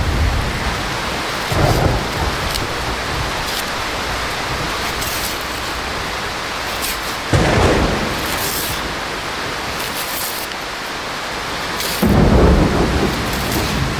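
Heavy rain pouring steadily, with three sudden, louder low rumbles: one shortly after the start, one midway and a longer one near the end.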